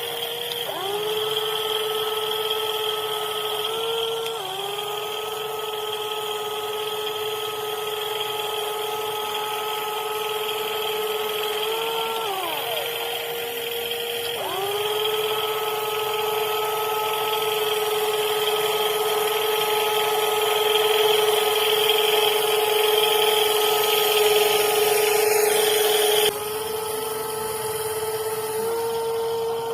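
Motors of a WLtoys 16800 RC metal excavator whining steadily. The pitch sags and recovers a few times as they take load. About 26 seconds in, part of the noise cuts off suddenly and the sound becomes quieter.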